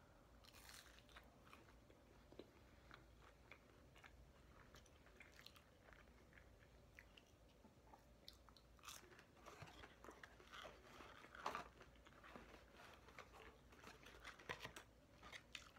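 A person biting into and chewing McDonald's chicken nuggets: faint, crackly mouth sounds and small clicks, denser and louder in the second half.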